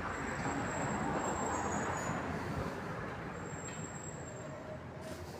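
Honda CBR1000RR inline-four engine idling steadily through an aftermarket sport exhaust, a low even rumble with no revving.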